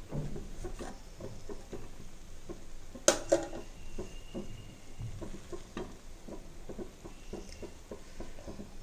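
A spoon moving through cooked biryani rice in a pot, scraping and clicking against the metal, with a sharp clink about three seconds in.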